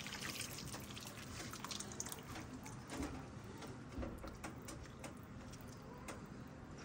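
Wooden spoon stirring red salsa through beef and nopales in a skillet: soft scraping and wet stirring, with light knocks about three and four seconds in.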